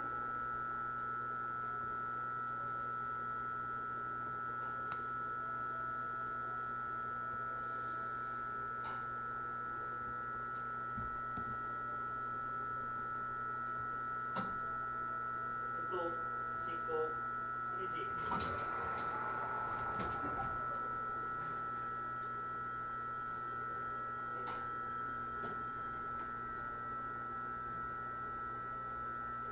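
Steady electrical hum and whine from a stationary E129 series electric train's onboard equipment, several fixed tones held without change in pitch. A brief rush of noise comes about two-thirds of the way through.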